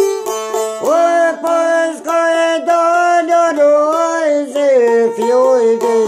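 A man singing a long, wavering sung line over a çifteli, plucked in quick repeated strokes above a steady drone. The voice comes in about a second in and drops out near the end, leaving the plucked strings alone.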